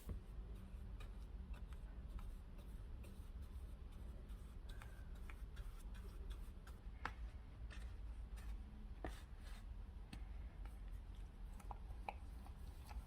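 Scattered light clicks and taps, irregular, with a few sharper ones midway, over a low steady hum.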